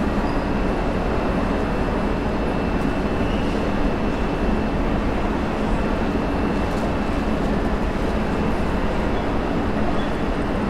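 Train rumbling steadily on the rails: a continuous low hum and rushing noise with a faint, steady high whine, holding level throughout.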